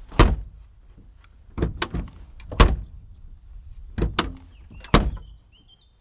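Tailgate latch and lock of a Fiat Panda 4x4 clunking: about seven sharp clunks, several in quick pairs, as the freshly WD-40-lubricated lock is worked and the tailgate latched.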